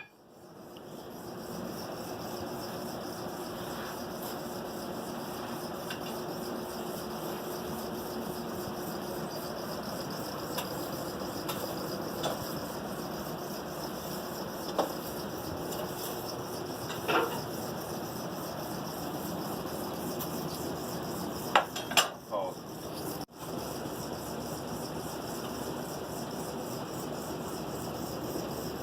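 Blacksmith's forge running with a steady rushing noise while the steel hammer head heats for the next pass of the drift. A few scattered metallic clinks and knocks sound over it.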